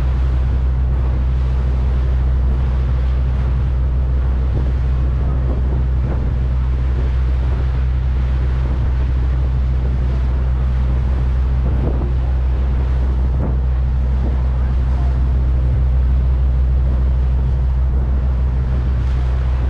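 Steady low drone of a ferry's engines underway, with wind buffeting the microphone.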